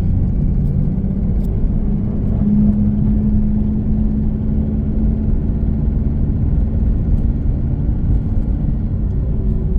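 Chevrolet Camaro driving under throttle, a steady engine and road drone heard from inside the cabin, with an engine tone that grows stronger about two and a half seconds in. Under it runs the steady tapping the driver hears whenever he is on the gas; it stops when he lets off.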